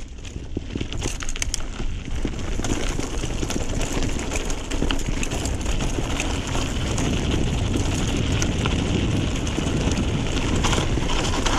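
Mountain bike rolling down a rough, stony dirt track: a steady crunch and rumble of tyres over loose gravel, with many small knocks and rattles from the bike. It gets louder over the first couple of seconds as speed picks up.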